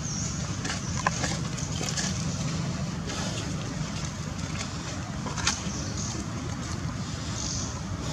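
Steady low outdoor rumble with wind buffeting the microphone, and a couple of short faint clicks, one about a second in and one about five and a half seconds in.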